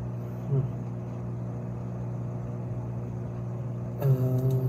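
Steady low hum of a running motor or fan. About four seconds in, a short pitched sound with a slight falling pitch and a few faint clicks.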